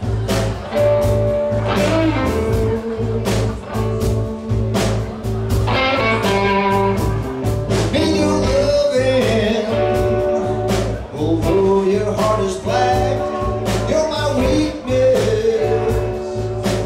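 Live band playing a song on electric guitar, bass guitar and drum kit, with a steady drum beat and a bending melodic line over the bass.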